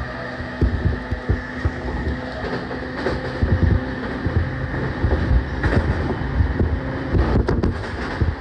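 Running sound of an E231-1000 series EMU motor car, its original unrenewed traction equipment, heard from inside the car: wheels rumbling on the rails with frequent low thumps over joints and a steady tone beneath that stops near the end.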